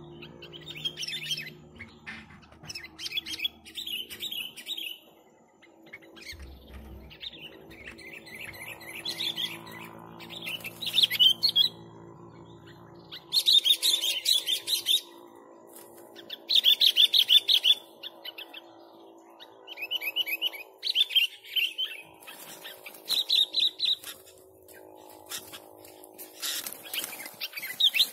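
Sooty-headed bulbul (kutilang) singing in short bursts of quick repeated notes, one phrase every two or three seconds.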